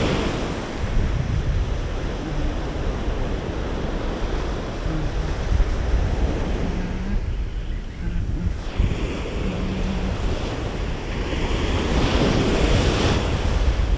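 Small shore-break waves breaking and washing up a sandy beach, with wind buffeting the microphone. The wash swells louder as a wave breaks near the end.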